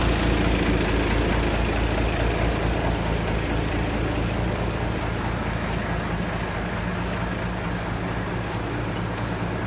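Steady low hum of a large boat-stacking forklift's engine running, growing gradually fainter.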